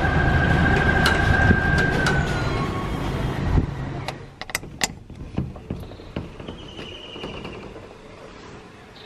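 A dense low hum with a steady high tone that stops about two seconds in. The sound then drops to a quieter background with a few sharp clicks about five seconds in and a short warbling tone a couple of seconds later.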